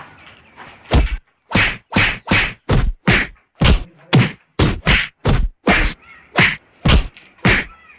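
A rapid run of whack sound effects, about two to three hits a second and all about equally loud, starting about a second in and running on without a break.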